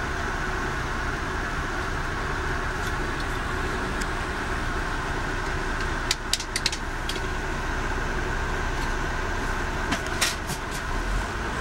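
Steady running noise of a moving vehicle heard from inside, a low rumble with a constant hiss. A quick cluster of sharp clicks or rattles comes about six seconds in, and a few more come around ten seconds in.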